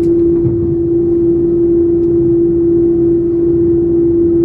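Airbus A330-300 cabin noise during taxi, heard from a seat behind the wing: the idling engines give a steady droning hum with a low rumble beneath it.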